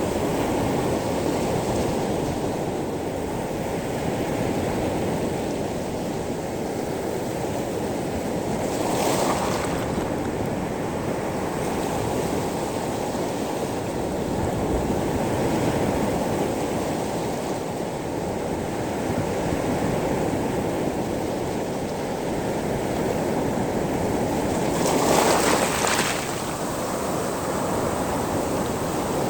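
Sea waves surging over a pebble beach: a continuous wash of surf. Two stronger swashes, about nine seconds in and near the end, brighten into a hiss.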